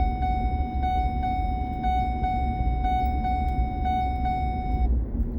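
A vehicle's warning chime dinging over and over in a quick, even rhythm, then stopping near the end, over the low rumble of the idling engine.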